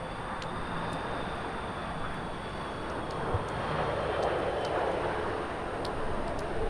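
Airbus A330 jet airliner on final approach, its engines making a steady rushing jet noise with a faint high whine that grows louder about halfway through as the plane comes closer.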